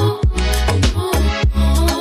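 Background music with a steady, strong drum beat and bass.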